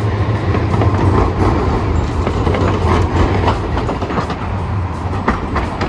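Hiroden 1000-series Green Mover LEX low-floor articulated tram passing close by: a steady low hum with irregular clicks and knocks from its wheels on the track, easing off near the end.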